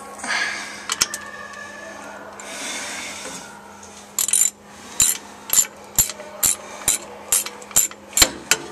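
Socket ratchet wrench being worked on flange bolts, with scraping handling noise at first, then short bursts of pawl clicks about twice a second on each back-swing.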